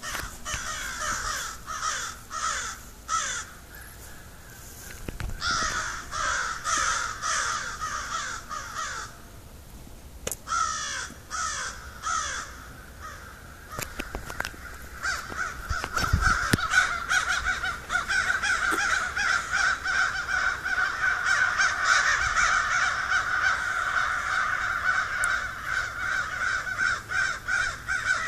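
A large flock of crows cawing, many birds calling over one another. The calls come in bunches with short lulls at first, then from about halfway through they merge into a dense, unbroken chorus.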